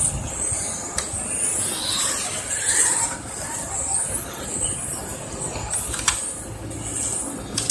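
Brushless electric motors of 1:10 touring cars (13.5T and 8.5T) whining at high pitch, rising and falling again and again as the cars accelerate and lift through the corners and onto the straight. A few sharp ticks break in now and then.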